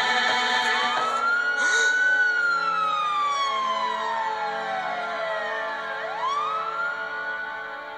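An emergency vehicle siren wailing. Its tone rises, slides slowly down over a few seconds, then rises again near the end and holds high.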